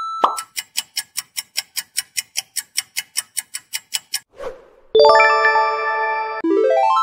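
Quiz-game sound effects. A quick downward pop, then a countdown timer ticking about five times a second for some four seconds, a soft whoosh, and a bright bell-like chime as the answer is revealed. A quick rising run of notes follows near the end.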